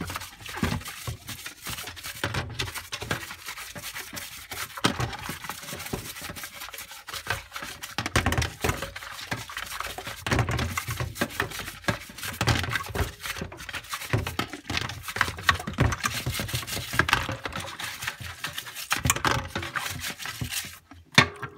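Hand scrubbing and scraping on the plastic cyclone parts of a Dyson DC41 vacuum being cleaned: an irregular run of scratches, rubs and small clicks.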